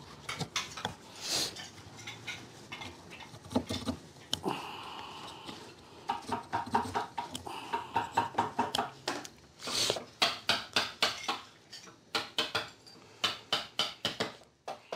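Hand-held carving chisel paring wood without a mallet: a running series of sharp clicks and short cuts as small chips are shaved off a carved figure, coming several a second in quick runs.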